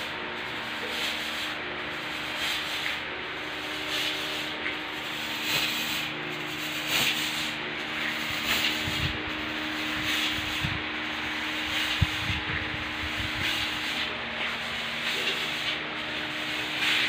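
Steady rough hiss of a fogger pouring disinfectant smoke into a store, with a low steady hum under it and a few low knocks and one sharp click about two-thirds of the way through.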